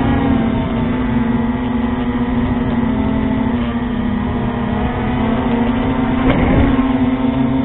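FPV quadcopter's electric motors and propellers whining, heard through the onboard camera, the pitch wavering as the throttle changes. A brief louder rush comes about six seconds in as the drone dips close to the ground.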